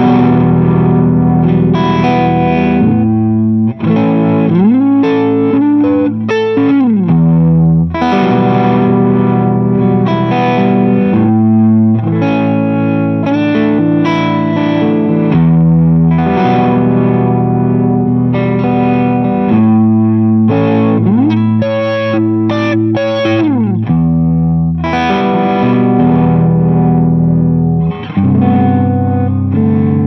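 Electric guitar played through a home-built phaser pedal, Phaser 45, noodling chords and riffs. Twice a note is bent up, held and let back down.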